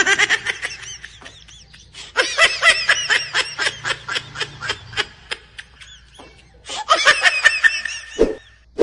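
A laughter sound effect: one high-pitched voice laughing in fast runs of short ha-ha pulses, pausing between runs, with a short low thump near the end.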